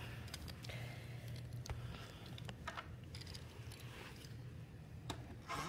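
Faint, scattered clicks and taps of small plastic toy pieces being handled and set down on a toy coffee-shop playset, over a low steady hum.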